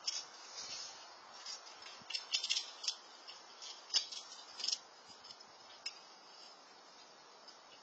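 Squirrel nibbling and rummaging at seeds and nuts in a food dish: crisp clicks and crackles in quick clusters through the first five seconds, then only a few scattered ones.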